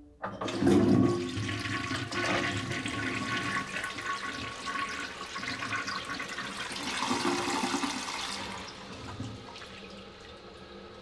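Toilet flushing: a sudden rush of water just after the start, loudest in the first second, swirling steadily for several seconds and then dying down to a quieter flow near the end.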